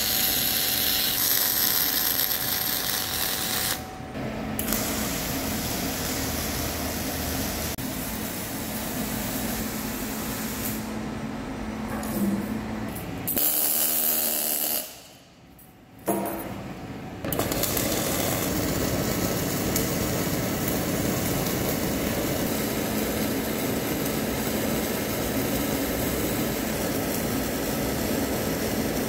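MIG welding arc crackling and buzzing steadily as weld is laid downhand on a steel excavator bucket. It is broken by a few short gaps, the longest and quietest about halfway through.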